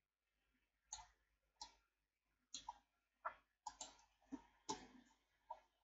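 Faint, irregular clicking of a computer mouse and keyboard, about a dozen short clicks.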